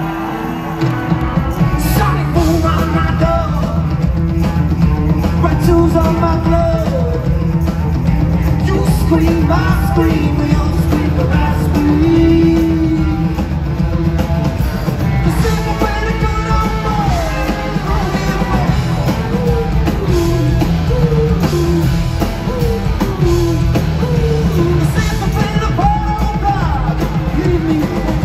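Rock band playing live, with a lead singer over the full band; the low end of the band comes in about a second in.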